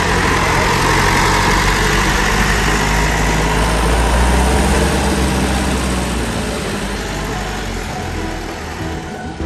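Diesel engine of a light truck stripped to its bare chassis, running as the truck drives past and pulls away, its low hum growing fainter over the last few seconds.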